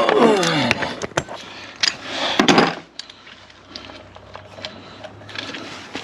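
Impact tool backing out Torx bolts: its motor whine falls away over the first second, then a short burst of rattling hammering about two seconds in, followed by light clicks and knocks of the tool and parts being handled.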